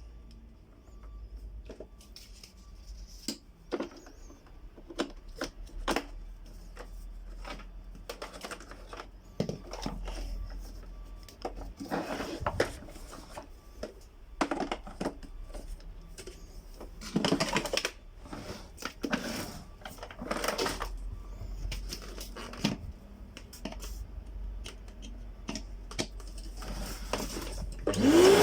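Irregular clicks, knocks and rattles of the Samsung SC4520 vacuum cleaner's parts being handled and fitted together after its motor replacement. Right at the end the vacuum motor switches on with a steeply rising whine.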